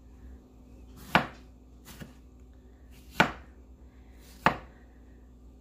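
Kitchen knife slicing strawberries on a wooden cutting board: three sharp knocks of the blade hitting the board, a second or two apart, with a fainter tap between the first two.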